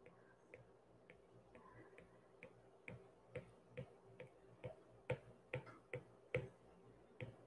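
Apple Pencil tip tapping on an iPad screen as short strokes are drawn, a run of light clicks about two or three a second that grow more distinct about three seconds in.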